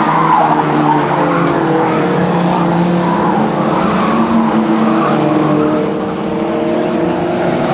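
Several old saloon stock cars racing together on a dirt oval, their engines running hard at steady revs with the notes overlapping, and tyres skidding on the loose surface.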